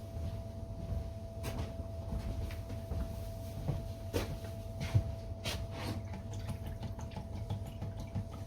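Scattered light knocks and clicks, a few per second at irregular spacing, over a steady low hum and a faint constant whine.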